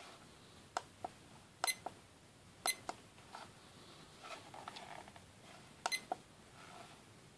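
FanJu FJ3523 digital alarm clock giving three short, high key-press beeps as its buttons are pressed, each with a small plastic button click, over soft handling rustle.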